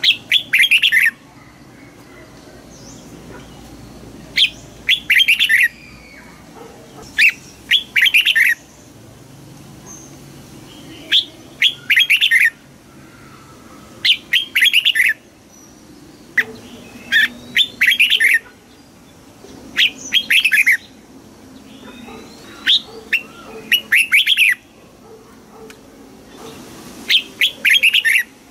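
Red-whiskered bulbul singing: about nine short, loud phrases of quick chirping notes, each around a second long and repeated every two to three seconds.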